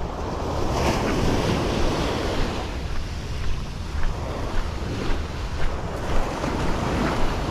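Small waves breaking and washing up the shore in slow surges, with wind rumbling on the microphone.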